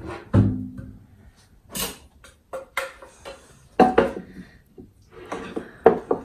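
Irregular knocks and clatter of a wooden cutting board and a kitchen knife being handled and set down on a wooden counter, the loudest knocks about four seconds in and near the end.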